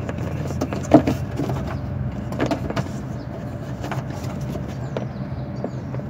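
A car engine idling with a steady low hum, under scattered plastic rustles and clicks from a hand working inside the front wheel-well liner; one sharp click about a second in.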